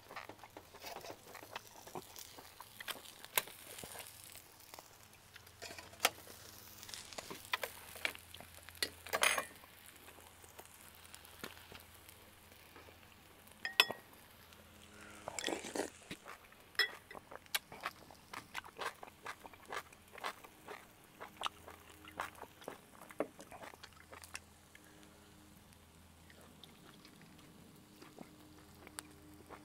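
Irregular clicks, clinks and scrapes of metal tongs and a spoon handling grilled fish on a charcoal kettle grill, a wooden cutting board and a sauce bowl, with a couple of sharper knocks about a third and half way through. Near the end, eating by hand.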